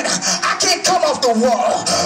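A man singing into a handheld microphone, his voice sliding and bending between notes, over music with a quick steady beat.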